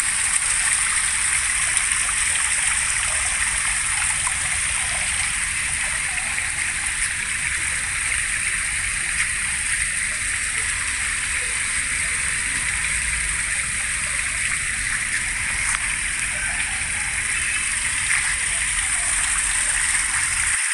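Water falling from spouts in a small artificial rock-wall waterfall and splashing into shallow stone pools: a steady, even splashing.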